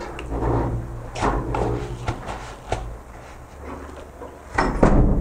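Simit dough ring dipped in a bowl of water, then pressed and rolled in a bowl of sesame seeds: soft splashing and a gritty rustle of seeds. A few sharp knocks against the bowls, the loudest near the end.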